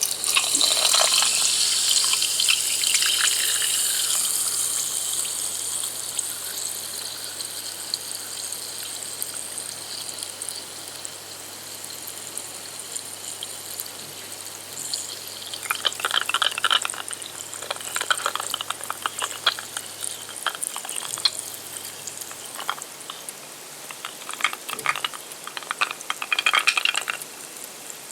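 A steady hiss of water, loudest at the start and easing over the first several seconds. Later come clusters of crackling clicks.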